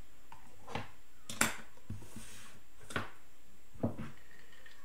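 Four sharp clicks of a computer mouse, irregularly spaced about a second apart, the second the loudest.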